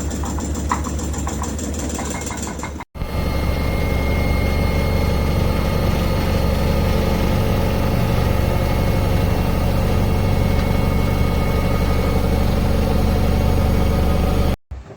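Cecotec Bolero Dresscode 7410 front-load washing machine running with a loud, steady machine hum and several held tones. The sound cuts off abruptly about three seconds in, then picks up again at the same level.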